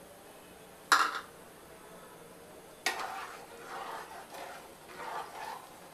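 A metal spoon clinks sharply against an aluminium pressure cooker twice, about two seconds apart, then stirs the thin liquid with its coriander leaves for a few seconds, sloshing unevenly.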